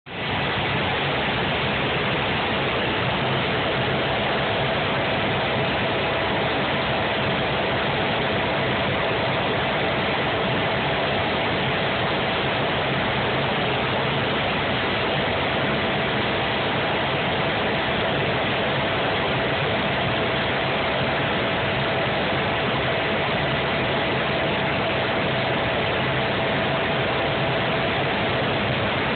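Helicopter in flight heard from inside the cabin: a steady rush of noise with a constant whine.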